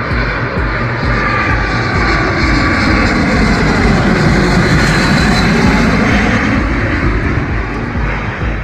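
Airliner passing overhead on its landing approach, the engine noise swelling to its loudest about halfway through and then fading.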